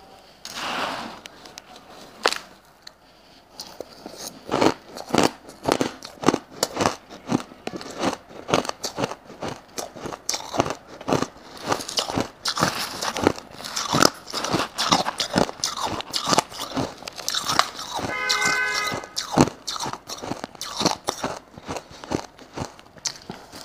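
Shaved ice being bitten and chewed close to a clip-on microphone: a dense run of sharp, crisp crunches. A short pitched tone with several overtones sounds about eighteen seconds in.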